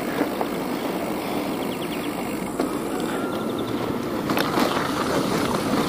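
Bicycle on the move: a steady rushing noise of tyres rolling and air going past, with a couple of light clicks about four and a half seconds in.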